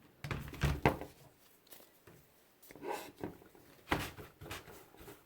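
Handling noise from brushing isopropyl alcohol onto a greasy electrical component in a paint roller pan: a few knocks and clunks, loudest about a second in, then some scraping and a sharp click near four seconds.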